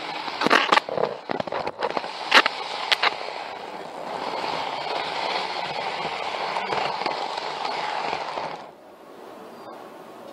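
N-gauge model train rolling along its track, heard from on board: a rattling run with sharp clicks over rail joints and points in the first few seconds, then a steady running noise that drops off sharply near the end.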